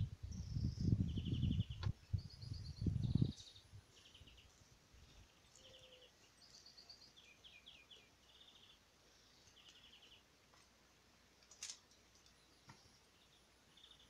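Small songbirds singing in spring: short, rapid trilled phrases at a couple of different pitches, repeating every second or so. A low rumble covers the first three seconds, and a single sharp tick comes about two-thirds of the way in.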